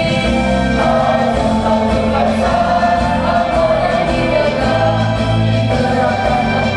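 A crowd singing a song together over instrumental accompaniment, the voices holding long notes.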